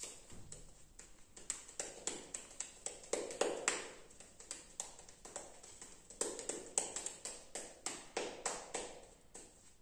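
A razor shaving lathered underarm hair in quick, short scraping strokes, several a second, with brief pauses between runs.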